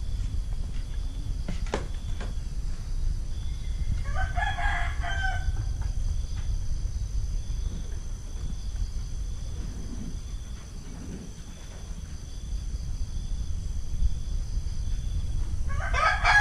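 A rooster crowing twice: one call about four seconds in, and a second, louder one starting near the end, over a steady low rumble.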